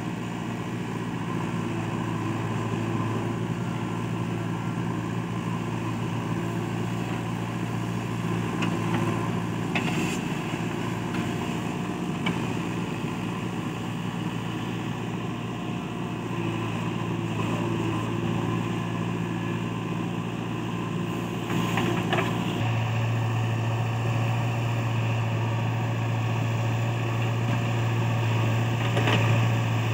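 Diesel engines of a JCB 3DX backhoe loader and a Swaraj tractor running steadily while soil is loaded, with a few sharp knocks. About two-thirds of the way through, the low engine hum gets louder.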